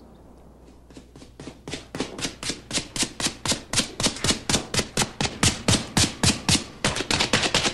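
A printer's pair of leather ink balls being beaten and worked against each other to spread the ink evenly before inking the type. A rapid, even patting of about five or six strokes a second starts about a second in and soon grows louder.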